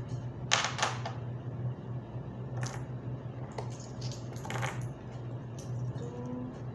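Saudi riyal coins clinking as they are counted and stacked by hand: several sharp clicks, the loudest pair about half a second in. A steady low hum runs underneath.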